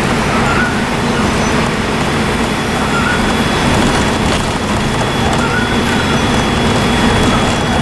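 Dennis Trident II double-decker bus engine running steadily while under way, with a thin, steady, high turbo whistle above the engine noise.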